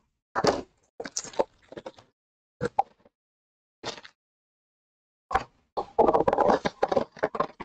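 Cardboard trading-card hobby box being handled and opened by hand: a string of short scraping and rustling sounds, sparse at first and busiest near the end.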